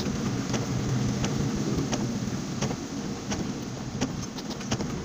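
Vehicle engine running while driving on a wet road, heard from inside the cab, with the hiss of tyres on water. Sharp ticks recur about every two-thirds of a second over it.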